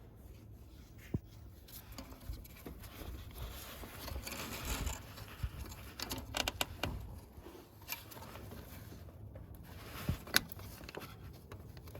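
Scattered light clicks and scrapes of small metal parts being handled, as the starter's wire terminals and nut are fitted back on by hand.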